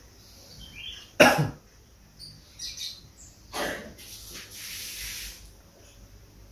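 A person's short, sharp vocal bursts, a loud one about a second in and another past the middle, then a long breathy exhale, reactions to firm pressure on a sore acupressure point below the breastbone. Faint bird chirps sound in between.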